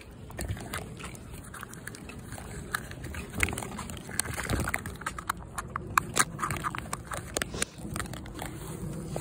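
Irregular clicks and knocks of handling: plastic Easter eggs clattering in a cloth basket as it is carried and a hand reaches in among them, with a few louder knocks about midway.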